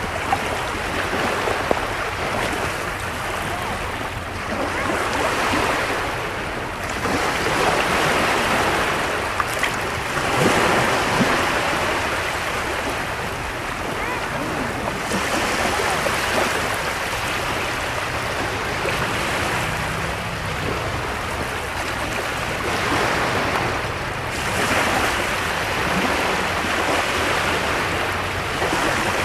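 Small waves breaking and washing on the shore, the surf swelling and falling back about four times. Faint voices of people in the background.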